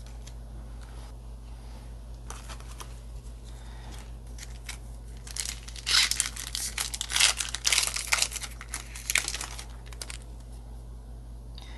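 Foil trading-card booster pack being crinkled and torn open: a few faint rustles at first, then dense loud crackling for about four seconds from around the middle.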